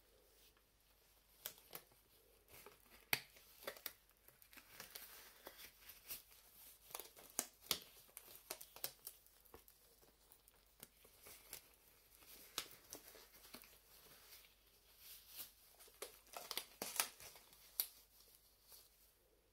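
Thin latex gloves being pulled onto the hands: quiet rubbery crinkling and many small sharp snaps as the latex stretches and lets go.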